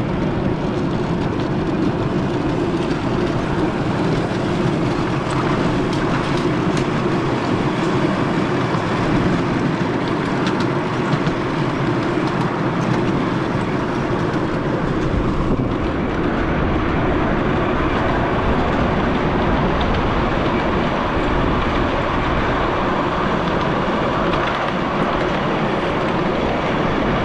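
Miniature railway train running along the track: a steady running noise of wheels on rail, with a few faint clicks.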